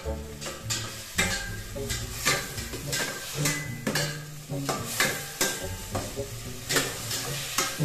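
A long metal spoon scraping and knocking against a stainless steel pot in repeated, irregular strokes as tomatoes, garlic and onion are stirred, with the sizzle of the sauté underneath.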